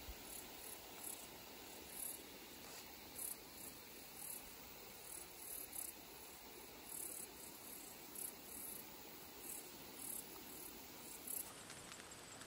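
Faint insects chirping in summer woods: short, very high-pitched chirps recurring irregularly, about once or twice a second, over a quiet outdoor hiss.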